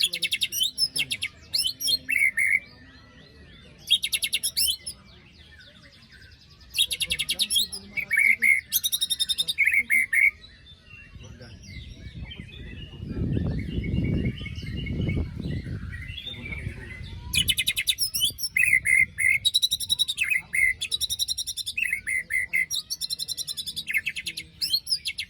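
White-rumped shama singing in bursts of harsh, very rapid rasping trills (its 'besetan' phrases), alternating with short clearer whistled notes. A low rumble runs under the song for a few seconds around the middle.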